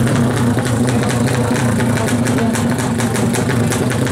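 Carbureted, 350 cc single-cylinder four-stroke engine of a Yamaha Jupiter MX drag bike idling steadily at the start line.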